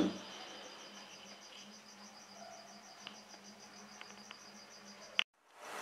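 Faint room tone with a cricket's steady, evenly pulsing chirp over a low hum, and a few soft ticks. The sound cuts out abruptly near the end.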